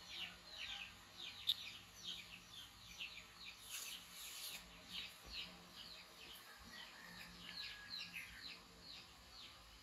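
Small birds chirping over and over, quick short falling chirps, with a brief rustle about four seconds in.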